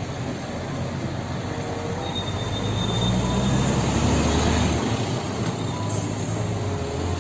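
Heavy gas tanker truck with a semi-trailer driving past, its engine running low under steady road and tyre noise, growing louder toward the middle and easing off near the end.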